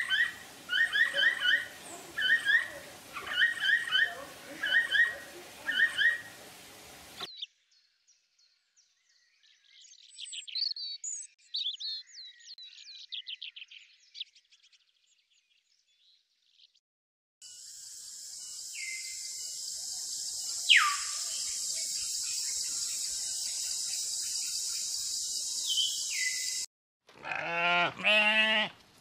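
A run of animal sounds. First come short chirping calls repeated several times a second, then near silence with faint chirps, then a steady high hiss with a few sharp falling whistles. Near the end a Dall sheep bleats twice.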